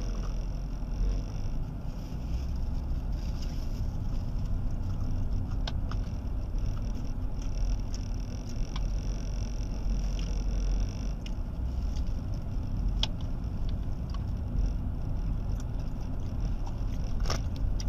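Steady low rumble of a car heard from inside the cabin, with a few faint sharp clicks scattered through it.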